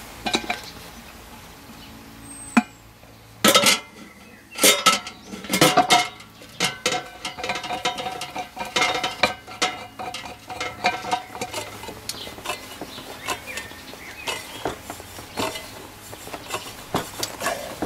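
Stainless steel cooking pot and lid clanking against its metal base: a run of sharp metal knocks with a ringing tail, loudest a few seconds in, then many lighter clinks and rattles.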